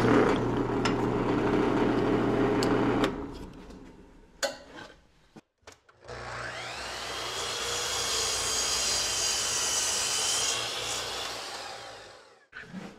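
Drill press boring a quarter-inch hole in a white oak board, the motor running steadily, then stopping about three seconds in. About six seconds in, a miter saw spins up with a rising whine, crosscuts the white oak board, and winds down near the end.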